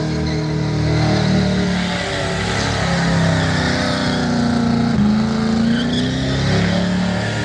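Holden burnout car's engine revving hard and holding high revs, its pitch wavering up and down, with a sudden change in pitch about five seconds in.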